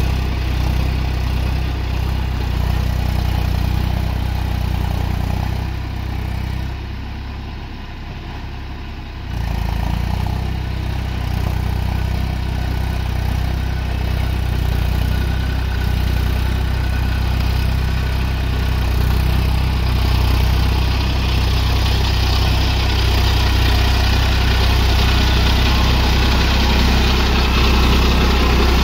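Eicher 480 tractor's diesel engine running steadily as it pulls through deep paddy-field mud on cage wheels. It drops quieter for about three seconds around seven seconds in, then comes back and grows louder toward the end.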